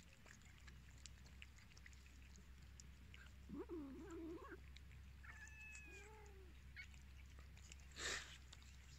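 Cats meowing twice while feeding on wet food, the second call higher, over faint small clicks of eating. A short rustle near the end.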